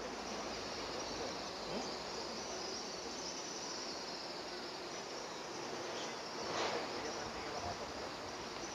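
Steady high-pitched chirring of insects in riverbank grass over a low outdoor hiss, with one brief soft noise about two-thirds of the way through.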